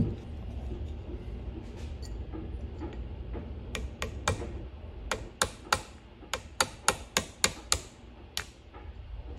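Small hammer tapping a part out of a Crescent Model 60 shotgun's action, driving it out the top: about fifteen sharp taps starting about four seconds in, three at first and then a quicker run of roughly three or four a second.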